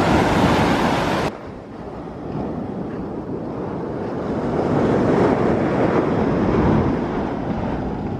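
Rough sea surf with wind buffeting the microphone. About a second in the sound drops suddenly and loses its hiss, then the surf swells back up.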